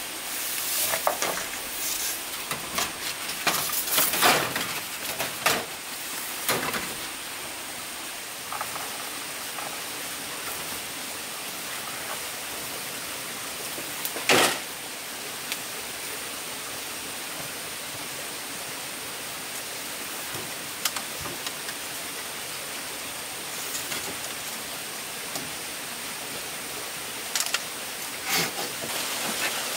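Steady hiss of background noise with scattered sharp knocks and clatter: a cluster in the first six seconds, one loud knock about fourteen seconds in, and a few more near the end.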